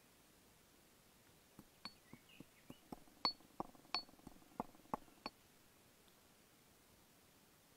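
Stone pestle pounding black peppercorns in a stone mortar: about a dozen sharp, irregular clinks over some four seconds, with the peppercorns cracking. A bird chirps faintly once.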